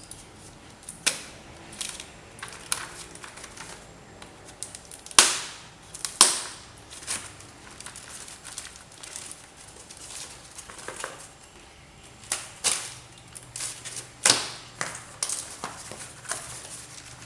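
Package being opened by hand: irregular crinkling and crackling of the wrapping with sharp snaps, the loudest about five and six seconds in and again near fourteen seconds.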